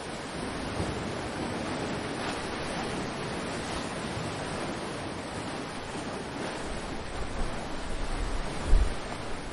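Ocean surf washing steadily onto the shore. Near the end, gusts of wind buffet the microphone with a low rumble, the strongest just before the end.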